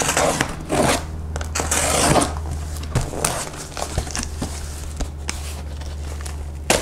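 Packing tape on a cardboard shipping box being slit and peeled away, in short bursts of scraping and tearing that are heaviest in the first two seconds, followed by lighter scrapes and clicks against the cardboard.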